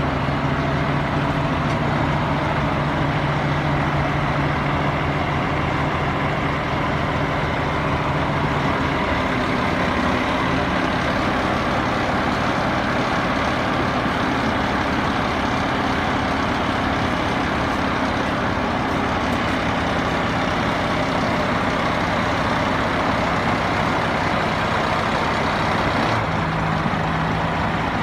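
Hyundai heavy dump truck diesel engines running steadily while one truck's hydraulic tipper bed lifts to dump its load. The engine note changes about nine seconds in.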